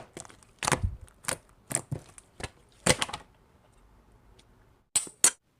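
Slime being pressed and poked, with crisp clicking pops about every half second, then two quick pops near the end.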